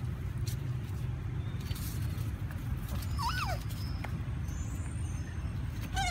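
Puppies play-fighting: one puppy gives a short whine that falls in pitch about halfway through, and another whine starts near the end, over a steady low rumble.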